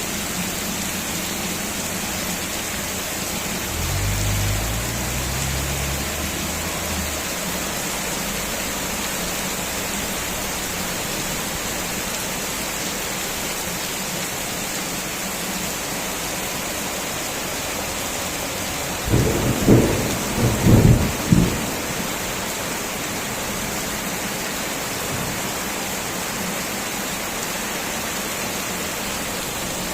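Heavy rain falling steadily, with thunder: a low rumble about four seconds in, and a louder rolling burst of several thunder cracks about two-thirds of the way through.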